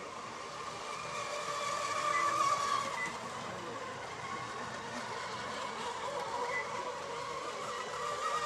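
Radio-controlled Mono 1 electric racing boats running at speed: a steady high motor whine that rises and falls slightly in pitch as the boats pass, loudest about two seconds in.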